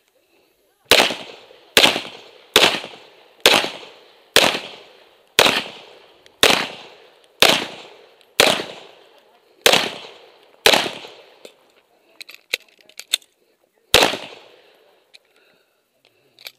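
Semi-automatic pistol fired twelve times at a steady pace of about one shot a second, each shot trailing off in a short echo. About three seconds pass before the last shot, with a few light clicks in between.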